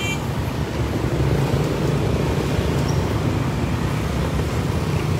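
Steady low rumble of motor vehicle engines, with no change in pitch or level.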